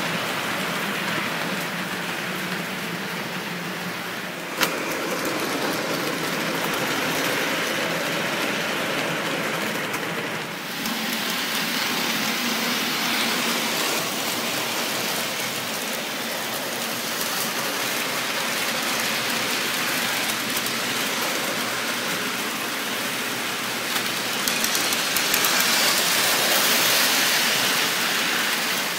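Toy trains running on metal three-rail track: a steady rolling rumble and clatter of wheels and motors. There is a single sharp click about four and a half seconds in, and the sound grows louder and brighter near the end as the cars pass close.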